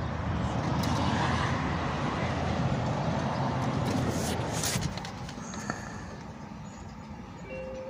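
Steady vehicle rumble with a low, even roar that falls off sharply about five seconds in. Just before the drop come a few sharp clicks and knocks.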